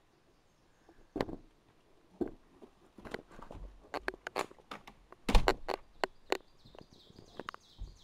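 Footsteps on a wooden deck and then over dry leaves and dirt: an irregular run of crunches and knocks, heaviest about five seconds in.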